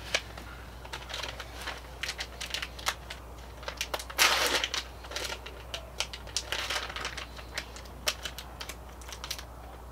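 Plastic bag of shredded cheese crinkling and crackling as it is handled and opened, in a run of irregular rustles with a louder burst about four seconds in.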